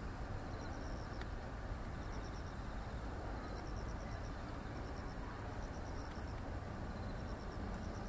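Insects, likely crickets, chirping in short, high, pulsed trills that repeat every second or two, over a steady low rumble.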